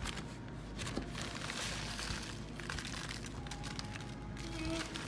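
Clear plastic bag crinkling and rustling as a piece of chicken is worked around inside it in a coating of crushed Cool Ranch Doritos and breadcrumbs.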